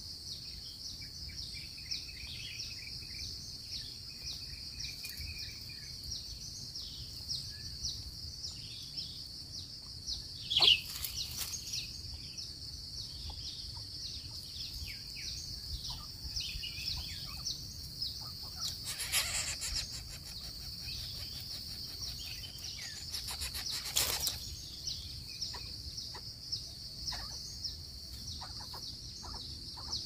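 A steady high-pitched insect drone, with scattered short bird chirps over it and a sharp, louder noise about ten seconds in.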